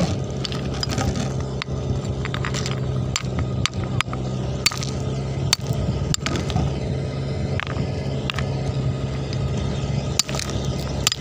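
Steady hum of a Dongfeng-type engine driving a gold-mining suction pump, with irregular sharp knocks from a rock hammer striking river stones.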